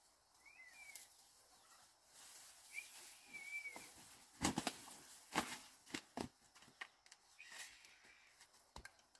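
Several sharp knocks, the loudest about four and a half and five and a half seconds in, with a few faint short chirping calls between them.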